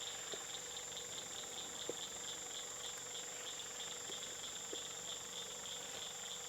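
Night insects chorusing: a steady high trill with a pulsing chirp beneath it, repeating a few times a second. A few faint clicks come through now and then.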